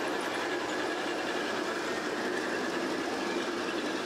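G-scale model train running along its track: a steady whir of the electric motor and rolling wheels.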